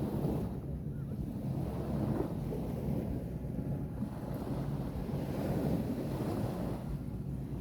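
Ocean surf washing onto a beach, swelling and fading as a few waves come in, over a steady low rumble of wind on the microphone.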